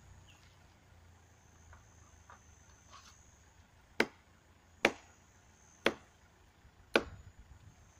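Four sharp knocks or chops, each about a second apart, with a brief clatter after the last.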